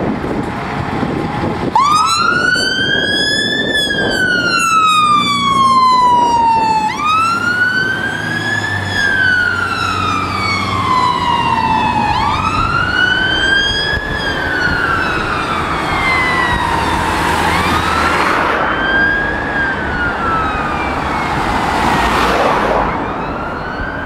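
Siren on a 2005 Scania pump rescue ladder fire engine, starting about two seconds in and sounding a slow wail: each cycle rises and falls over about five seconds. The appliance's diesel engine runs underneath as it pulls away, and the wail grows fainter toward the end as it drives off.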